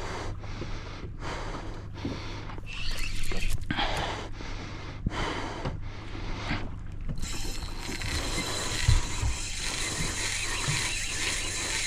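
Fishing reel mechanism working in short ratcheting bursts about once a second, then a steady high hiss from about seven seconds in.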